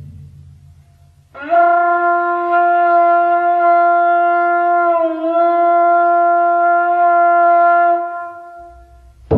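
A single long note on a horn-like wind instrument, sliding up into pitch about a second in, held for around six seconds with a slight waver midway, then fading. A deep drum stroke hits right at the end.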